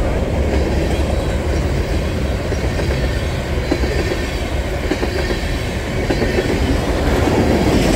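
Freight cars of a Union Pacific mixed freight train, covered hoppers and tank cars, rolling past on the rails: a steady low rumble of steel wheels on track.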